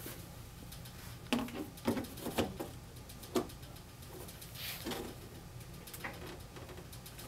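Square magnetic speaker grille handled against the ceiling and bracket: several short knocks and scrapes as it is set in place and turned for alignment, over a faint steady hum.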